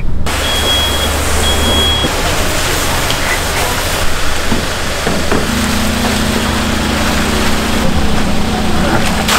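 Seawater rushing out of a large hose into the fish tank of a live-fish transport truck. Two short high beeps come early on, and a steady hum joins about halfway through.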